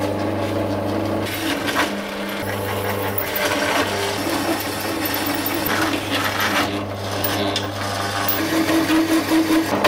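Pedestal drill running a hole saw through rectangular hollow steel section: a steady motor hum under the grinding, scraping rasp of the saw teeth cutting the steel.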